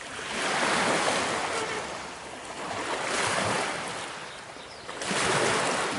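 Small lake waves washing onto a stony shore, a rushing sound that swells and fades about every two seconds.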